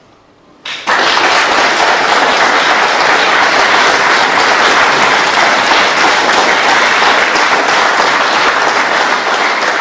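Audience applauding: after a short silence the clapping breaks out suddenly about a second in and stays loud and steady, easing a little near the end.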